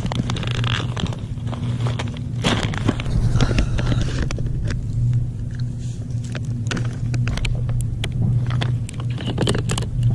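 A steady low mechanical hum, with scattered clicks and rustling from handling close by.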